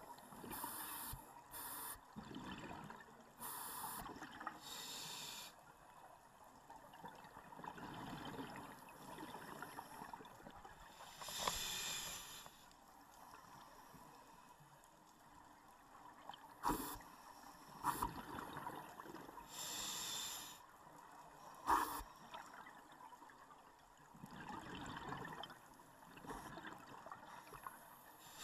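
Scuba regulator breathing, muffled through the camera's underwater housing: a burst of exhaled bubbles every few seconds. A few sharp clicks come in between.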